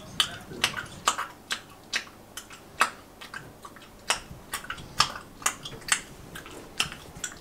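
Quiet, sharp clicks at an even pace of about two a second, like a ticking.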